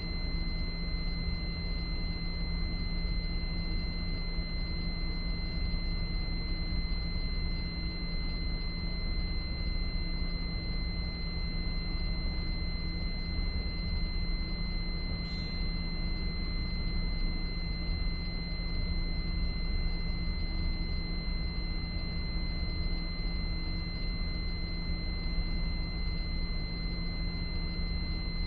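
Fire alarm control panel's trouble sounder giving a continuous, steady high-pitched electronic tone, the signal of a trouble condition on the alarm system, over a low steady hum. A faint tick about halfway through.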